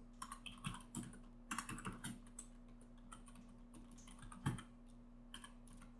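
Computer keyboard typing, faint: short runs of keystrokes with pauses between them.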